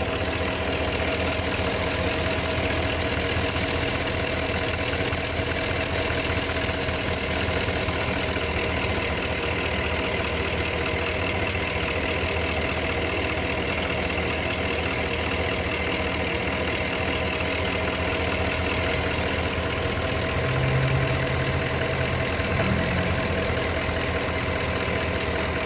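Cadillac Escalade Hybrid's Vortec 6.0 V8 idling steadily with a light ticking on top, which the owner hears from the driver's side bank and wonders may be the fuel injectors.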